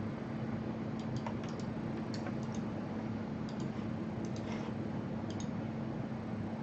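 Irregular light clicking of a computer keyboard, in short quick clusters, over a steady low hum.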